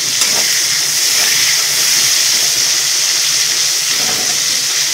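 Tomatoes and chillies sizzling steadily in hot oil in an aluminium kadai, stirred with a metal spatula.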